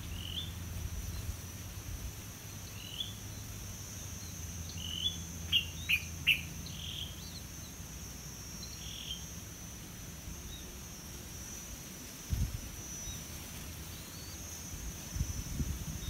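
Outdoor tree-canopy ambience: an insect's steady high-pitched buzz, with short chirps from small songbirds scattered through it and a quick run of sharper chirps about six seconds in. There is a low rumble in the first half and a few low thumps near the end.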